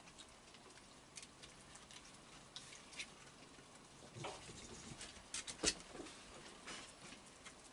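Raccoons moving over a wooden deck and bench: scattered ticks and taps of claws and feet on the boards. A cluster of sharper knocks comes about two-thirds of the way through, the loudest a single hard knock as a raccoon gets down off the bench.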